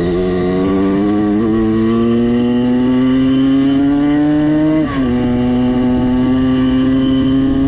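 Simson S51 moped's tuned 85 cc two-stroke engine pulling under throttle while riding, its pitch climbing slowly. About five seconds in it briefly drops in pitch and level, then climbs again.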